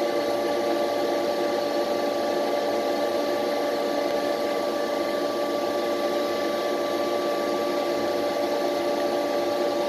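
LA155F30 CNC lathe running steadily: an even machine hum with several constant tones held throughout.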